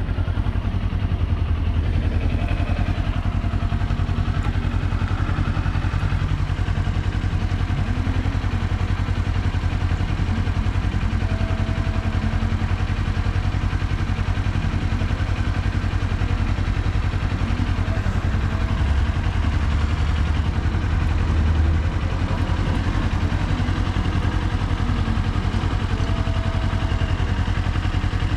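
Kawasaki Z400's parallel-twin engine running steadily, with an even, low exhaust note.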